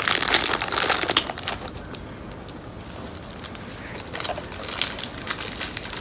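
Plastic stroopwafel wrapper crinkling and crackling as it is handled and opened, loudest in the first second and a half, with a few fainter rustles later.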